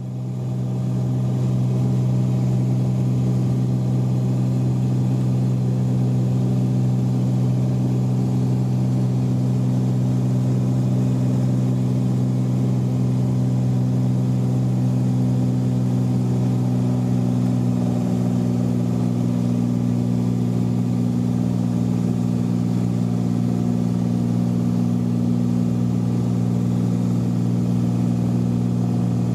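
Cessna 182's six-cylinder piston engine and propeller running steadily: an unbroken low drone, its pitch shifting slightly about two-thirds of the way through.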